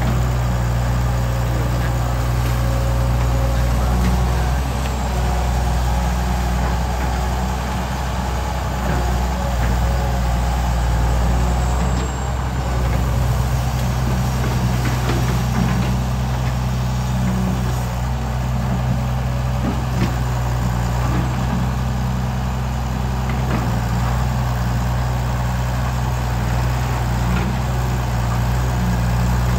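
Kobelco SK09 excavator's diesel engine running steadily, a low drone whose loudness rises and dips a little every few seconds.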